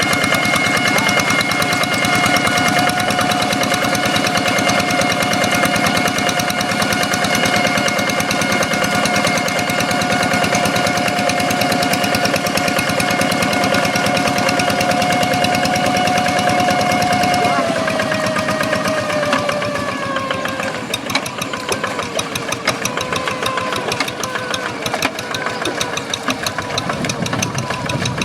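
Hand tractor's Kubota single-cylinder diesel engine running with a steady high whine, the 'ngiung ngiung' sound. About two-thirds of the way through, the whine slides down in pitch and the engine gets a little quieter as it slows.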